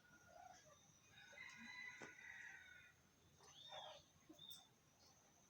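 Faint bird calls: a drawn-out call from about a second in to past two seconds, then a short arched chirp near four seconds.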